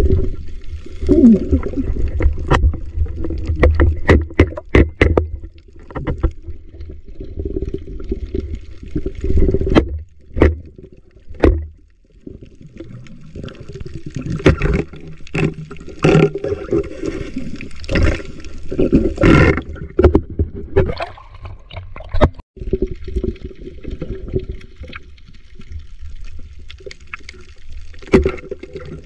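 Muffled underwater water movement heard through a camera's waterproof housing, with many sharp clicks and knocks, some in quick runs.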